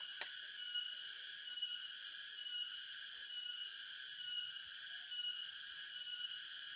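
Insects buzzing in a steady high chorus that swells and dips about once a second, with a single light tap just after the start.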